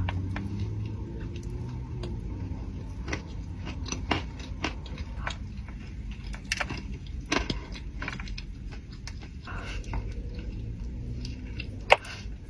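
Close-up eating sounds of someone eating a donut: chewing with scattered short clicks and smacks, over a low steady rumble.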